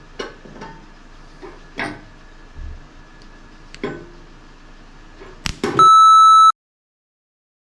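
Scattered light knocks and clicks of metal tools being handled, then a sharp crack and, near the end, a loud electronic beep of about three-quarters of a second that cuts off abruptly into dead silence.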